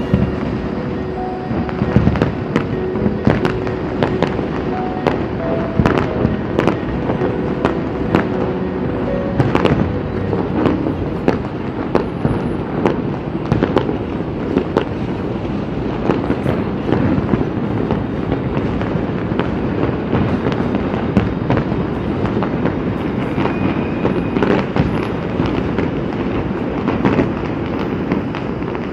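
A fireworks display going off continuously, a dense run of bangs and crackling pops with many sharp reports every second.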